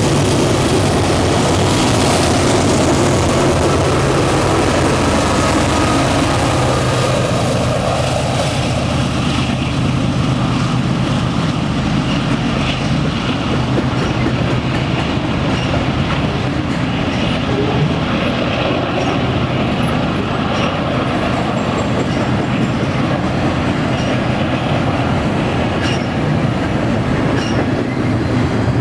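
BNSF double-stack container train passing close by. Its diesel locomotives go by loudly with a strong hiss at first, and then the stack cars rumble steadily past with faint, regularly spaced wheel clicks.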